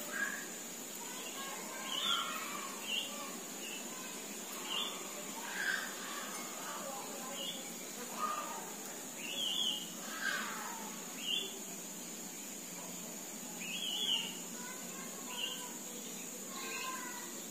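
Small birds chirping: short high chirps and brief gliding calls every second or two, over a steady background hiss with a faint constant high whine.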